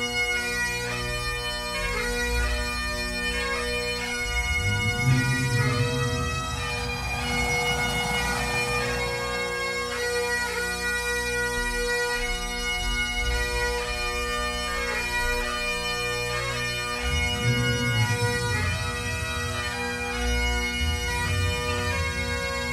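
A band of Great Highland bagpipes playing a slow tune in unison over their steady drones, with brief low rumbles twice.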